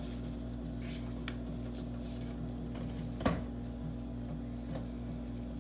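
Steady low electrical hum in a kitchen, with a few light clicks about a second in and one sharper click or knock about three seconds in.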